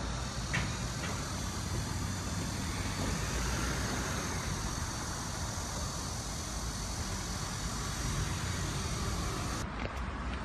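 Steady outdoor background hum of distant road traffic, a low rumble with hiss above it. Near the end the hiss drops away abruptly, leaving the low rumble and a few faint ticks.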